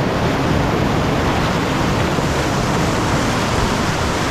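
River whitewater rushing steadily and loudly, an even noise without breaks.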